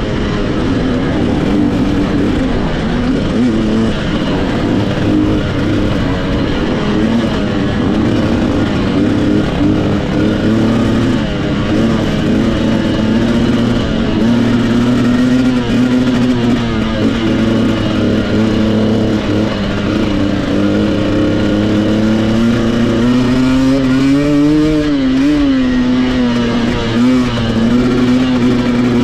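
Dirt bike engine running loud and steady under the rider's throttle, its note wavering a little, with a brief rise and fall in pitch about 25 seconds in.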